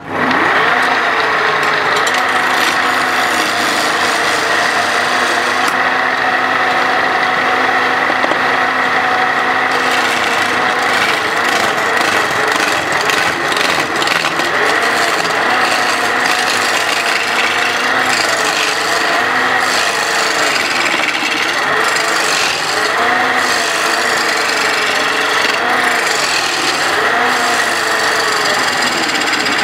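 Wood lathe spinning a long square wooden blank while a hand-held turning tool cuts into it: a continuous rasping scrape of wood over a motor hum that wavers in pitch. The blank is being roughed down from square to round.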